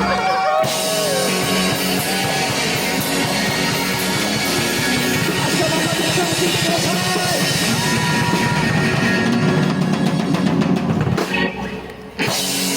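Loud rock music with distorted electric guitar and a drum kit, dropping away about eleven seconds in.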